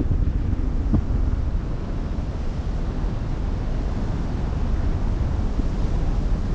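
Wind buffeting the microphone over the wash of open-sea water, a steady rushing noise heaviest in the low end, with a couple of stronger gusts in the first second or so.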